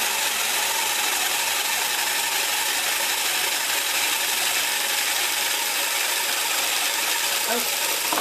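Sabre saw (jigsaw) running steadily, its reciprocating blade cutting down through a raw butternut squash.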